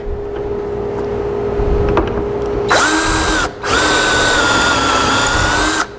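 Cordless drill with a stepped pocket-hole bit boring pocket holes in oak through a pocket-hole jig. The motor whines in a short burst about three seconds in, then again in a longer run of about two seconds, its pitch dipping a little as the bit cuts.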